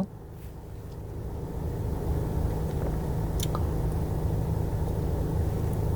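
Car cabin noise from inside a taxi: a steady low engine and road rumble that grows louder over the first couple of seconds and then holds steady, with one faint click in the middle.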